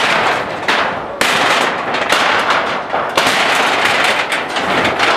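Loud, dense crackling and crashing of demolition, with many sharp cracks in quick succession. The sound breaks off and comes back abruptly about a second in and again about three seconds in.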